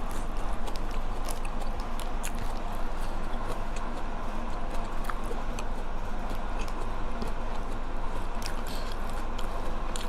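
Close-up chewing of a mouthful of spicy red-ant-egg salad, with small scattered mouth clicks over a steady low background hum.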